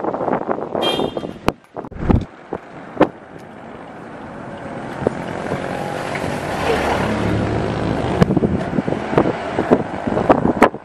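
Wind buffeting the microphone in gusts, with sharp knocks of handling. Through the middle a motor vehicle's steady rush and low hum swell up.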